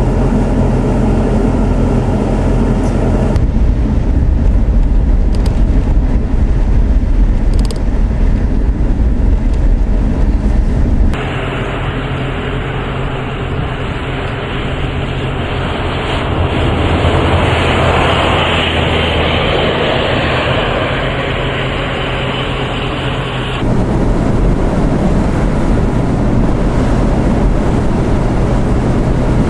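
Storm wind rushing and buffeting the microphone over a deep low rumble. The sound changes abruptly three times, about 3, 11 and 24 seconds in; the middle stretch is brighter and swells about halfway through.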